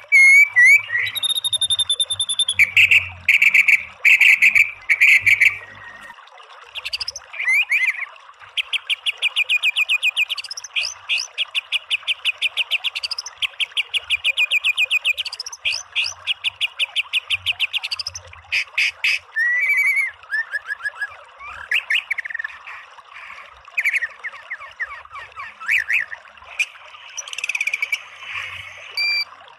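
White-rumped shama singing: loud clear whistles, then long fast runs of rapidly repeated notes (the 'tembakan' bursts), then shorter varied whistles and rising notes.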